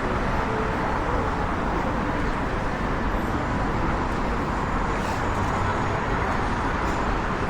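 Steady road traffic noise from cars on a busy city avenue.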